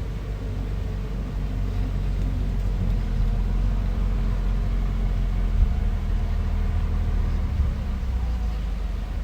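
Bulldozer's diesel engine running steadily with a deep, low engine note.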